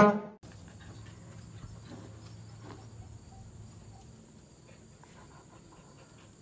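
Music cuts off about half a second in. Then a faint low hum with a few scattered soft taps and scuffs, fitting a husky puppy's paws on a tiled floor and a metal patio chair.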